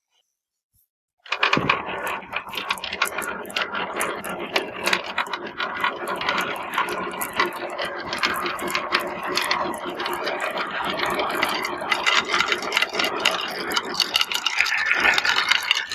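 A crowd of marbles rolling and clattering down plastic and wooden marble-run slopes: a dense, continuous rattle of many small clicks that begins about a second in, after a short silence.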